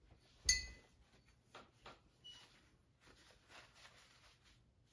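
A single sharp clink with a short ring, about half a second in, like a hard tool knocking against glass or metal, followed by faint light tapping and rustling.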